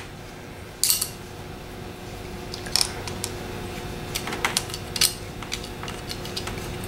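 Small metal screws clicking and clinking against the aluminium alternator end frame and rectifier as they are handled and set into place. One sharp click comes about a second in and a run of lighter clicks follows between about three and five seconds in, over a faint steady hum.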